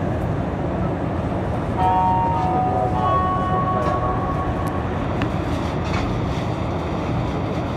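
Montreal Metro MR-73 rubber-tyred subway train running, heard from inside the car as a steady rumble. About two seconds in, a few steady motor tones sound and step up in pitch about a second later, then fade by the middle.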